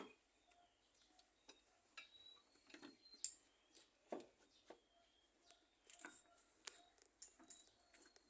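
Near silence with faint, irregular clicks and light taps.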